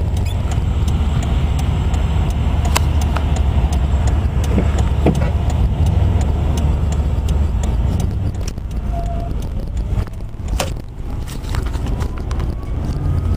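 Car heard from inside the cabin while driving slowly: a steady low rumble of engine and road noise, with scattered light clicks and rattles. The rumble eases off somewhat in the last few seconds.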